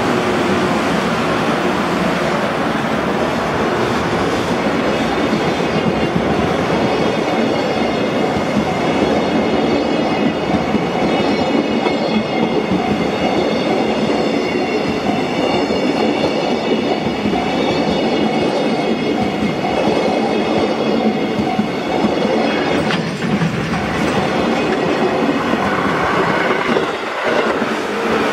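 Container freight train rolling past close by, its wagon wheels clattering over the rail joints in a loud, steady rumble, with a high ringing tone through the middle stretch.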